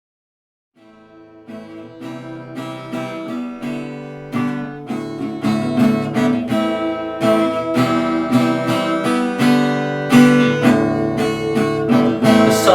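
Acoustic guitar strumming chords in the instrumental intro of a song, starting about a second in and building steadily in loudness.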